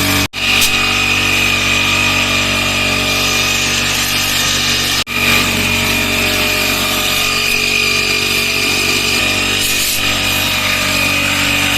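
Portable pressure-washer jet pump running steadily, its motor humming with a high whine over the hiss of the water spray, as it washes a window air conditioner. The sound cuts out for an instant twice.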